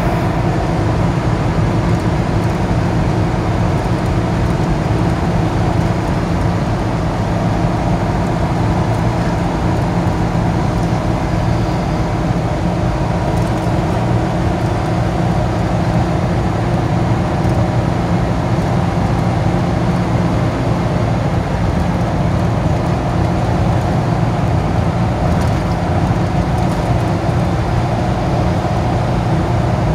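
Steady engine hum and tyre and road noise heard from inside a vehicle cruising on a highway.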